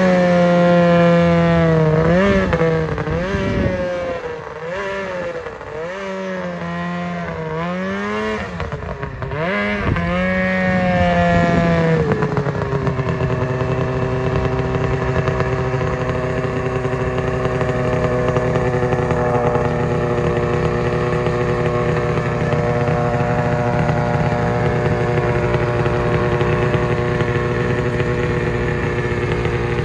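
Ski-Doo snowmobile's two-stroke engine revved up and down in repeated swells for about the first twelve seconds, then holding a steady note.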